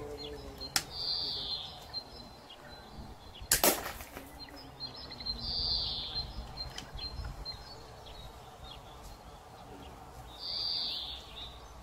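A homemade slingshot rifle with rubber bands and a wooden stock is fired once, with a sharp snap about three and a half seconds in, preceded by a faint click. A short high-pitched sound comes three times, spaced a few seconds apart.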